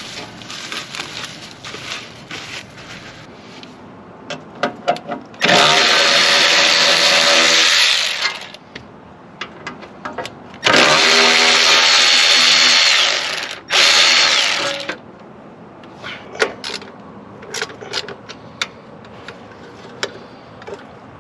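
A handheld motorized tool is switched on and off in three bursts: two of a few seconds each and a short one about a second long. Between the bursts come small knocks and rustling from loose dry grass being cleared out of a hay baler.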